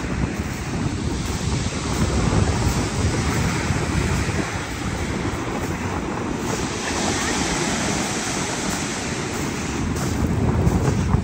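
Sea surf breaking and washing ashore, with strong wind rumbling on the microphone. The hiss of the surf grows stronger about halfway through.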